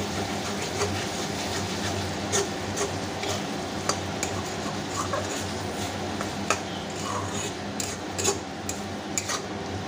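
Metal spatula stirring and scraping pigeon meat in a metal kadai, with irregular clinks against the pan over a steady sizzle as the meat fries down in the oil it has released.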